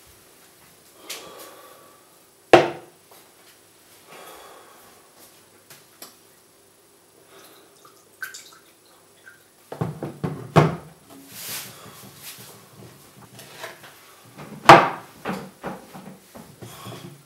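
Tableware handled on a wooden table: a glass French press and a mug set down, with knocks and clinks. A single sharp knock comes a couple of seconds in, a spell of clatter around the middle, and the loudest knock, followed by more clatter, near the end.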